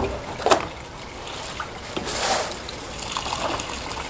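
Water running from a pipe into plastic basins and splashing over boiled greens as they are rinsed in a plastic colander, with a louder splash about two seconds in.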